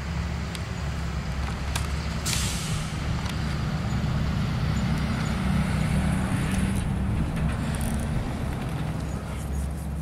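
Steady low rumble of a running vehicle engine, with a short hiss a little over two seconds in.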